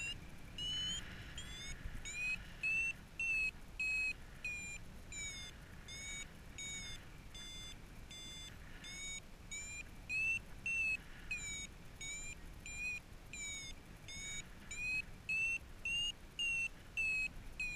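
Paragliding variometer beeping in a thermal: short high beeps, about two a second, thinning out for a few seconds then quickening again. The beeps signal that the glider is climbing. A low steady wind rumble runs underneath.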